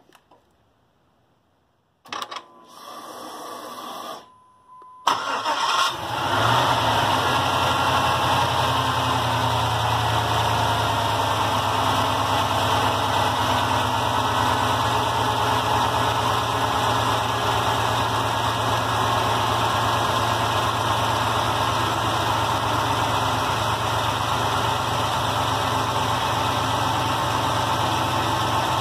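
GM LS V8 being remote-started: a click and about two seconds of electric fuel-pump whine as the pump primes, a brief pause, then the engine cranks and catches about five seconds in and settles into a steady idle.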